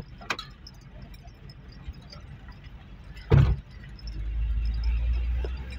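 Car driving over a rough dirt track, heard from inside the cabin: a low rumble with small rattles and clicks, one heavy thump a little past halfway, and the low rumble growing louder and steadier near the end.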